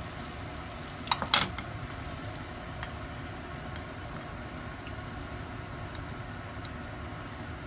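Sliced garlic sizzling and bubbling steadily in oil in a frying pan. Two sharp clicks come about a second in.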